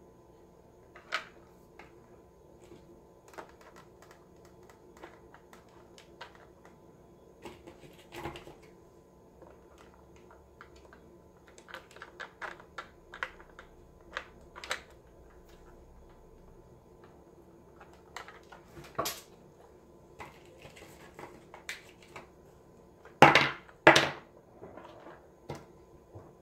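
Scattered light clicks and knocks of AA batteries and the plastic battery compartment being handled and fitted in the base of a Genie Soap II touchless soap dispenser, with two sharper, louder clicks close together near the end.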